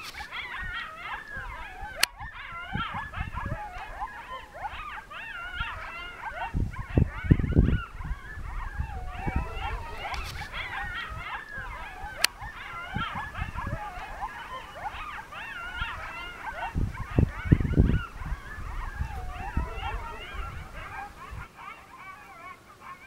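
A pack of coyotes in a group yip-howl chorus: many voices overlapping in wavering, bending howls and yips throughout. Two brief low rumbles stand out as the loudest moments, about a third of the way in and again about three quarters of the way in.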